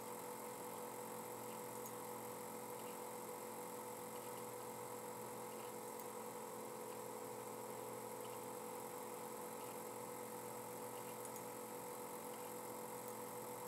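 Steady electrical hum of several constant tones over a background hiss, with faint ticks scattered irregularly through it.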